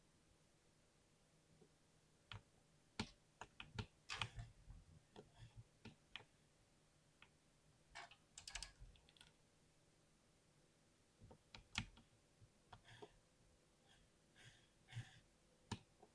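Typing on a compact 60% computer keyboard: irregular runs of key clicks in three bursts, with short pauses between them.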